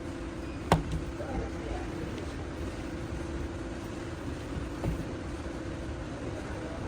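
Steady low mechanical hum of workshop machinery, with a sharp click under a second in and a softer knock near the end.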